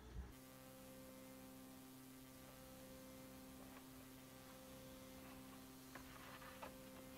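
Near silence with a faint steady electrical hum, and two or three soft clicks about six seconds in.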